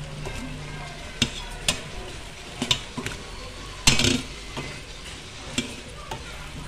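Liver, carrots and saba banana sizzling in a stainless steel pot while being stirred, with a cooking utensil clinking and scraping against the pot several times, loudest about four seconds in.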